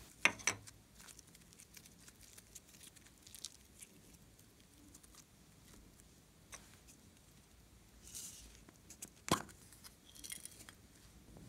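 Faint sticky crackles and small taps from hands handling soft clay and glossy slime, with a pair of clicks just after the start and one sharp click about nine seconds in.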